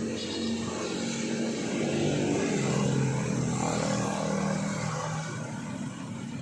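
Isuzu D-Max 4JK1 four-cylinder diesel engine running, growing louder toward the middle and easing off near the end. The engine misfires and is hard to start, with a leaking injector suspected as a possible cause.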